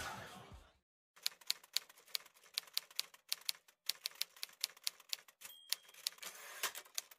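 Typewriter sound effect: a run of irregular key strikes, several a second, with a brief ringing tone about five and a half seconds in. It comes after the tail of the music fades out in the first second.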